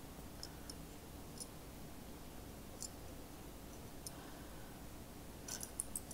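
Faint, scattered small clicks and ticks of a die-cast toy motorcycle being turned over in the fingers, over quiet room tone, with a few quick clicks together near the end.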